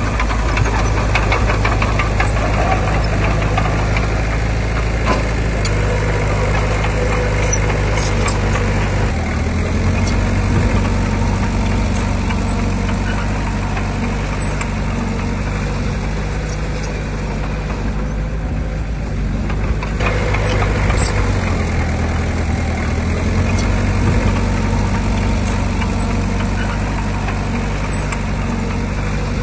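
Heavy earthmoving machine's diesel engine running under varying load, its pitch shifting in steps about nine seconds in and again about twenty seconds in, with scattered metallic clanks.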